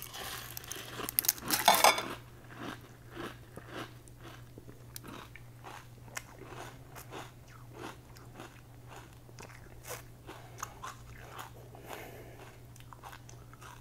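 Close-miked chewing of a mouthful of Frosted Flakes with crispy cinnamon basketball pieces in milk. Dense crunching for the first two seconds, then softer, irregular crunches as the chewing goes on.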